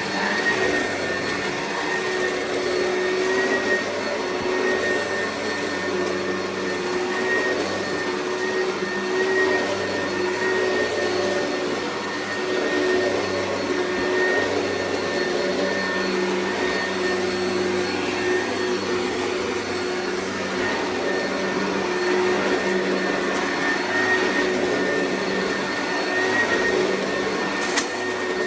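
Oreck vacuum cleaner running steadily, its motor giving a continuous whine over a rushing airflow noise, with one brief click near the end.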